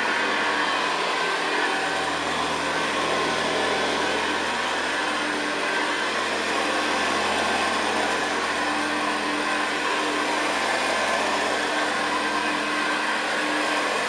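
1959 Hoover Senior 638 upright vacuum cleaner running steadily as it is pushed over carpet, its motor humming and its beater bar working the pile.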